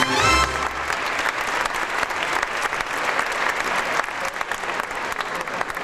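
Audience applauding, dense clapping throughout. The show's last musical chord dies away in the first second.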